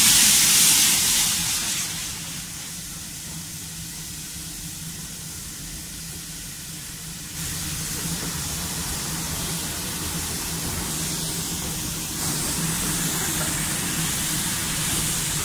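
Steam hissing from a small saddle-tank steam locomotive, over a steady low hum. The hiss is loud at first and dies down within about two seconds. It grows louder again about seven seconds in and once more about twelve seconds in.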